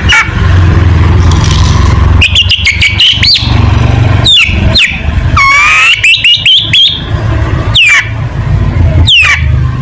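Long-tailed shrike (cendet) singing loudly, a mix of sharp downward-sweeping whistled notes and quick clusters of chirps, over a steady low hum.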